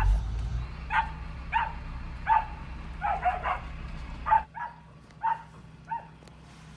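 Dog barking repeatedly in short, sharp barks, about a dozen of them, roughly two a second.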